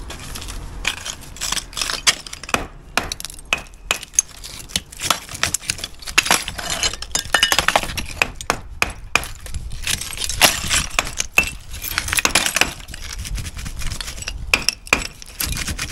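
Bricks laid on edge as cavity closers being knocked and levered out with a hammer, coming away easily: many irregular sharp knocks and clinks of hammer on brick and loose bricks and mortar rubble clattering against each other, busiest in the middle.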